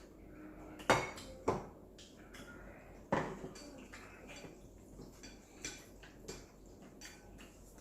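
Utensils clinking and knocking against noodle bowls, with a few sharper knocks about a second in, at about one and a half seconds and at about three seconds, and lighter clicks in between.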